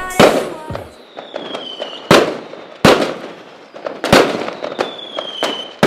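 Fireworks going off: about five loud, sharp bangs with smaller pops between them, two of them preceded by a high whistle that falls in pitch.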